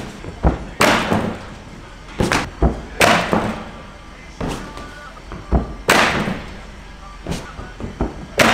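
Irregular thuds and bangs from vault training, about a dozen, each ringing out briefly in a large hall: take-offs from the springboard and vaulting table and landings on mats and in the foam pit.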